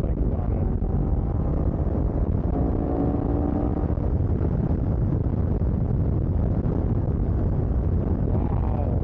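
Triumph Tiger 1200 motorcycle riding at road speed: steady wind rush and road noise, with the three-cylinder engine's note showing through faintly.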